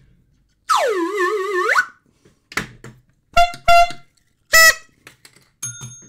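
Novelty toy horn noises: a wobbling tone that swoops down and back up, then three short honks, two close together and one a second later.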